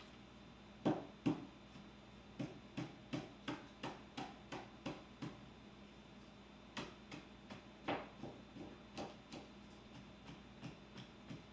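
A paintbrush being tapped in a run of light, sharp taps, about three a second. The taps start about a second in with two louder ones, break off briefly around the middle, then go on more faintly.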